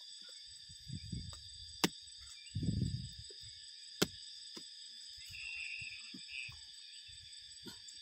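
Steady high chirring of insects, with two sharp knocks about two seconds apart and some low thuds and rustling as cassava roots are cut by hand with a knife.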